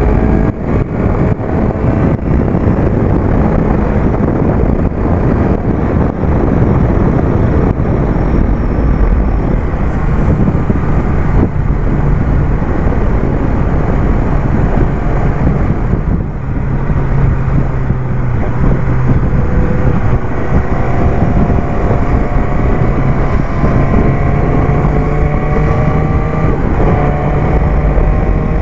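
BMW S1000R inline-four engine running at road speed under heavy wind rush over the microphone. In the last third the engine note climbs slowly as the bike gathers speed.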